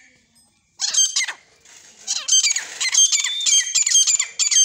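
Grey francolin (desi teetar) hen calling: a rapid series of high-pitched notes that starts just under a second in and comes in close-packed runs.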